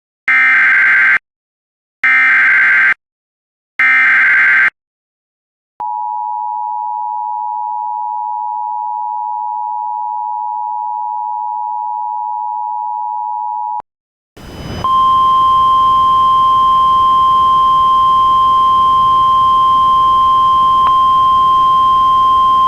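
Emergency Alert System tones: three short bursts of SAME header data, then the two-tone EAS attention signal held steady for about eight seconds. After a short gap, a single steady tone sounds over radio hiss, the NOAA Weather Radio 1050 Hz warning tone.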